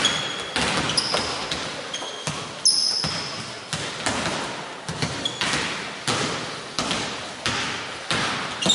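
Basketballs bouncing on a hardwood court, irregular thuds about two a second, each echoing in a large hall, with a few short sneaker squeaks.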